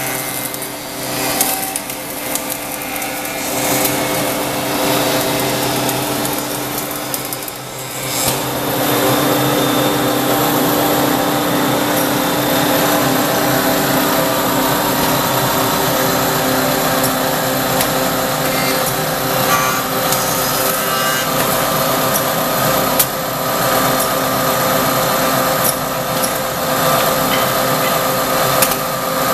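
SMB Flamingo KFA automatic copy shaper running, its cutter spindles milling a wooden workpiece. The steady machining noise grows louder about eight seconds in and then holds.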